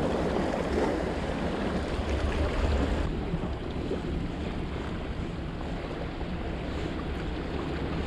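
Sea waves washing against rocks, with wind buffeting the microphone in a steady low rumble.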